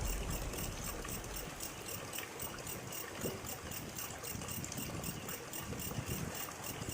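Steady rain falling with the river rushing, a low rumble fading in the first second. A high, rapid pulsing of about five beats a second runs above it.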